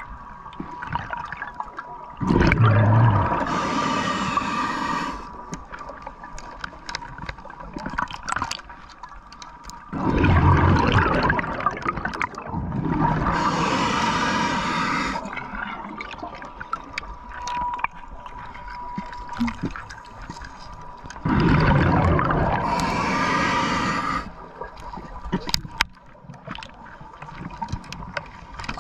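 Scuba diver breathing through a regulator underwater: three breaths about nine seconds apart, each a rushing draw followed by a longer bubbling exhalation, with quieter water noise between. A faint steady tone runs underneath.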